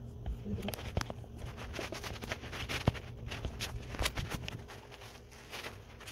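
Scattered clicks, taps and rustling, like handling noise and movement in a small room, over a steady low hum.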